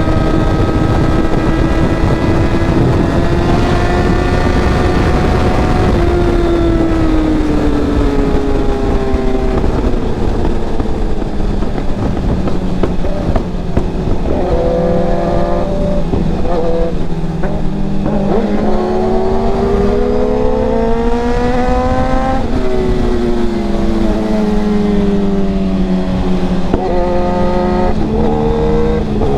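Tuned Suzuki GSX-R1000R inline-four engine under riding load, its pitch climbing and dropping repeatedly as the rider accelerates, shifts and rolls off, with quick short rises near the middle and again near the end. A steady wind rush sits underneath.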